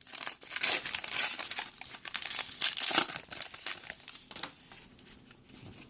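Foil wrapper of a 2015 Gridiron Kings hobby pack of football cards being torn open and crinkled in the hands, busiest in the first three seconds, then fading to faint handling.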